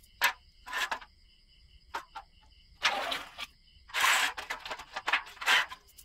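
Short scrubbing strokes of a toothbrush on a small chainsaw carburettor part, then handling noises of parts being picked up in a metal tin lid, about seven separate scratchy sounds in all. Crickets chirp steadily behind.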